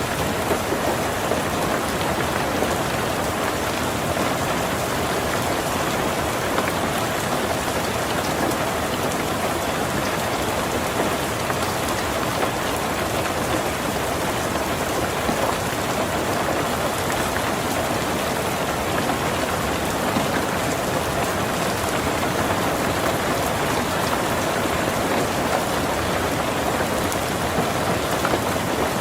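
Heavy rain drumming steadily on a tin roof, a dense, even patter of drops.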